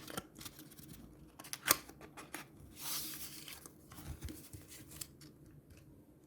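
Packaging of a replacement phone battery being handled and opened: scattered small clicks and crinkles, one sharp click a little under two seconds in, and a brief tearing rustle around three seconds in.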